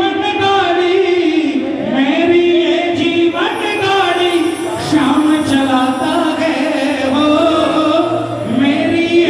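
A man singing a Hindi devotional bhajan into a microphone over a PA, with long held notes and phrases that swoop up into their first note.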